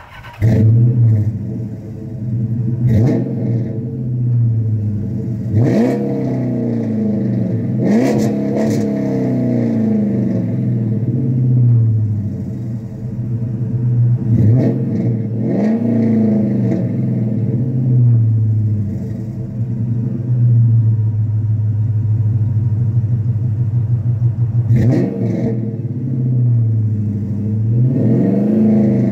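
Dodge Charger's 5.7-litre Hemi V8 breathing through full-length Mopar headers, high-flow cats and a 3-inch Flowmaster cat-back with no resonators, starting up just after the beginning and then idling. The idle is broken by about seven quick throttle blips, each rising and falling in pitch.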